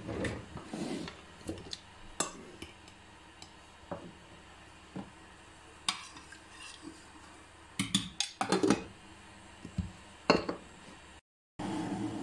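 Scattered clinks and knocks of a stainless steel pot, its glass lid and a metal utensil being handled on a stove top, with a busy cluster of clatter about eight seconds in. A steady hiss of the pot of water heating starts near the end.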